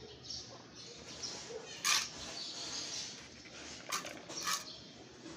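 Small hand trowel scooping and scraping loose potting soil over a concrete floor: three short scrapes, the first, about two seconds in, the loudest, the other two close together near the end.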